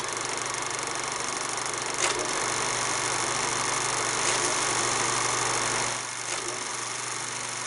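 Steady rushing hiss of skis running through powder snow and air moving past a helmet-mounted action camera, with a few faint knocks.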